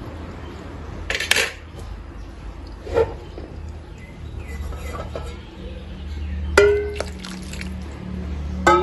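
A wooden spatula stirring curry in a metal kadai, knocking against the pan four times. The two later knocks leave a brief metallic ring, and the loudest comes about two-thirds of the way in.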